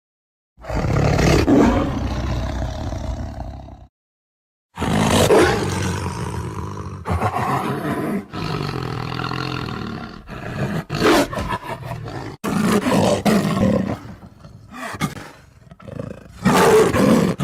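A lion roaring: one roar of about three seconds, a short silence, then a long drawn-out roar, followed near the end by a string of shorter, grunting roars.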